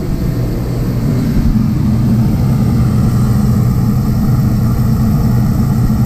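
A 100,000 BTU forced-air torpedo heater running: its fan and burner make a loud, steady rushing noise over a low hum.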